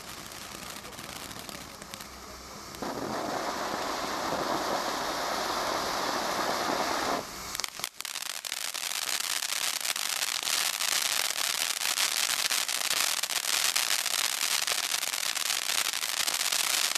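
A Leaping Lizards battery of firework fountains spraying with a steady hiss that grows louder about three seconds in. It breaks off briefly around seven seconds in, then the next fountain takes over with dense crackling.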